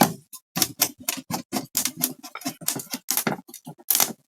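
Quick, irregular light clicks and taps of small metal screws being handled and set into a plastic case during reassembly.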